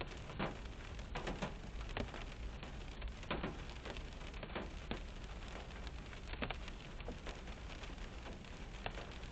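Rain falling on a car's roof and windshield, heard from inside the car: a steady hiss with scattered sharper taps of single drops.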